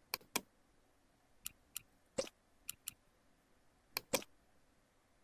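A series of about nine sharp, isolated clicks at irregular intervals, some in quick pairs, against a faint quiet-room background.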